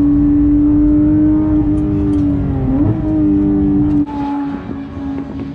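Porsche 911 GT3 RS's naturally aspirated flat-six engine heard from inside the cabin, held at high, steady revs under load on track. Its pitch dips briefly and recovers near three seconds in. About four seconds in it becomes abruptly much quieter.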